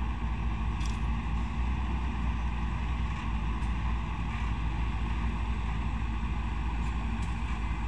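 Steady drone of heavy construction machinery engines, with wind on the microphone.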